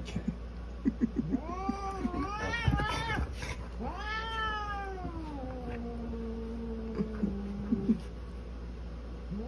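Orange cat giving an angry yowl: a couple of short rising cries, then one long drawn-out call that falls and holds low for about four seconds, with another cry starting near the end. A few sharp knocks come in between.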